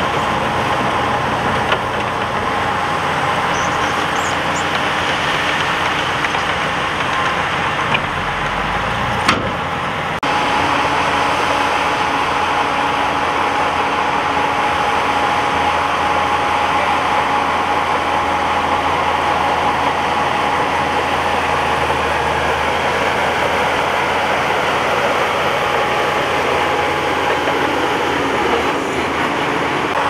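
Diesel engines of a dump truck tipping its load and a Shantui bulldozer running steadily, with a few sharp knocks in the first ten seconds. About ten seconds in, the sound changes abruptly to the bulldozer's engine working steadily as it pushes a pile of rock.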